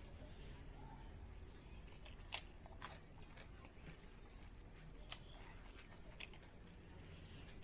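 Quiet eating sounds: a person chewing, with a few sharp mouth clicks spread out.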